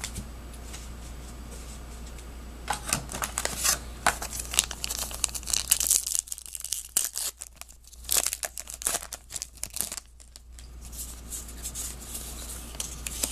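A pack of baseball trading cards being torn open: the wrapper crinkles and tears in a run of sharp rustles from about three seconds in until about ten seconds in, with lighter card handling either side.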